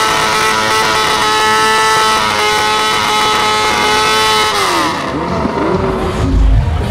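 Road-racing sportbike engine held at high revs in a rear-tyre burnout, a steady high-pitched scream. About four and a half seconds in, the revs fall away.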